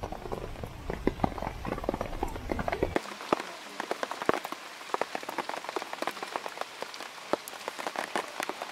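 Rain falling, with many irregular drops tapping close by, and a low rumble underneath that stops about three seconds in.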